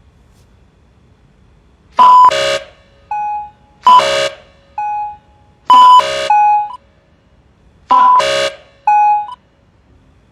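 Electronic alert chime sounding four times, about two seconds apart, each a bright, loud tone followed by a shorter, softer beep: the automatic fine notification for swearing.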